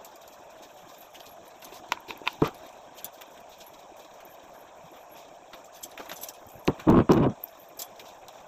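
Clatter of household objects being handled: a few sharp clicks about two seconds in, then a louder clatter of about half a second near the end, over a steady background hum.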